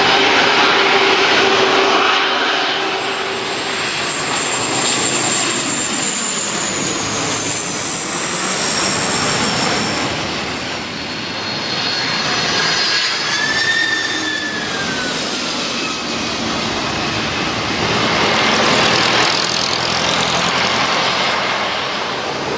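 Jet airliner's engines passing close by: a loud, continuous rushing noise with high engine whines that slide down in pitch as it goes past.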